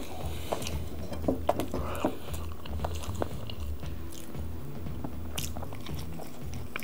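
A person chewing and biting into raclette (melted cheese, potatoes and cured meats), with scattered wet mouth clicks and smacks.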